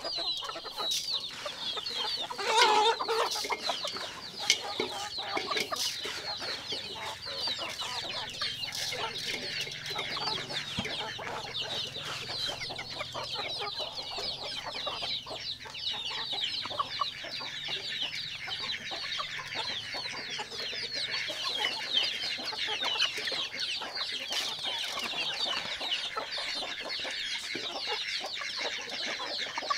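A flock of chickens clucking and chirping, a dense, steady chatter of many birds at once, with one louder call a little over two seconds in.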